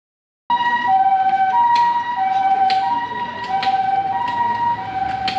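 Two-tone 'pii-poo' siren of a Japanese ambulance, alternating a high and a low note about every two-thirds of a second. It starts suddenly about half a second in, with a few short clicks of street noise over it.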